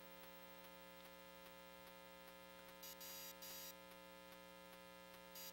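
Near silence: a faint, steady electrical mains hum on the audio feed, with two short bursts of hiss around three seconds in and a brief one near the end.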